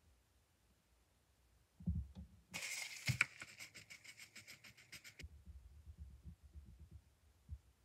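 A couple of soft knocks as a marker is put down and a coloured pencil picked up, then a coloured pencil scribbling quickly back and forth on paper, about seven strokes a second, for two to three seconds. Faint low rubbing of the pencil and hand on the paper follows.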